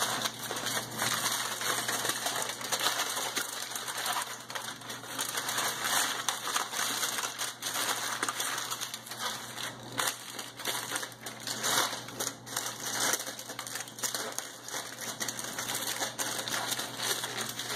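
Aluminium foil crinkling and crackling as it is pressed and handled around a covered cake pan, in quick, irregular crackles.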